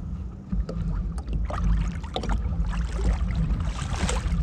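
Sea water sloshing and splashing against a fishing kayak's hull, with irregular small splashes and knocks over a steady low wind rumble on the microphone.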